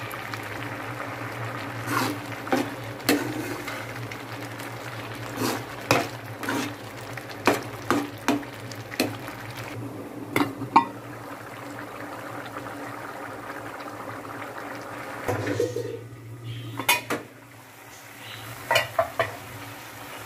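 A steel spoon clinking and scraping against an aluminium pot while stirring bubbling keema, with a metal pot lid clanking now and then, over a steady low sizzle of the simmering curry.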